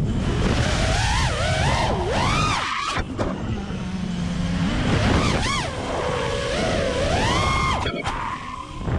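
FPV freestyle quadcopter's brushless motors and propellers on a 6S battery, whining and repeatedly rising and falling in pitch as the throttle is punched and chopped, with a couple of brief dips.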